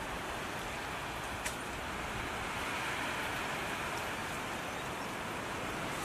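Steady rushing outdoor noise, swelling slightly in the middle, with a single faint click about one and a half seconds in.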